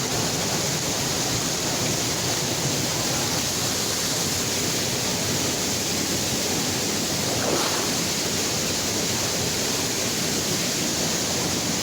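Steady rush of a waterfall, its water pouring over rocks at an even level.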